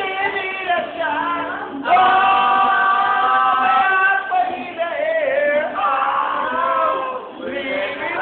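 Male voices singing loudly together into a microphone, karaoke-style, with long held notes; the singing gets louder about two seconds in.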